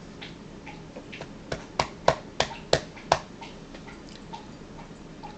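A woman's stifled laughter behind her hand: a run of about six short, sharp bursts, about a third of a second apart, starting about a second and a half in.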